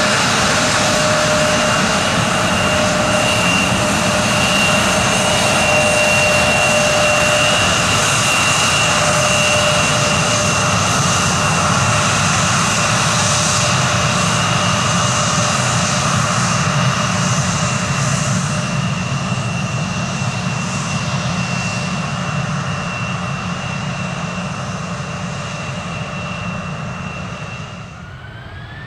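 Turbofan jet engines of an FDA Embraer regional jet running with a steady high whine over engine rush. The sound fades gradually through the second half, then right at the end a rising whine begins as the engines spool up for takeoff.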